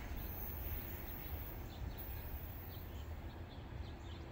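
Low, steady rumble of a departing freight oil train fading into the distance, with faint high chirps from about a second and a half in.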